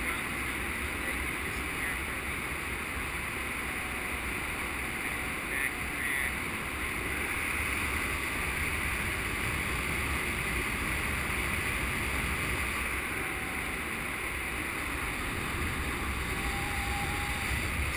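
Steady wind rushing over a GoPro camera's microphone on a paraglider in flight.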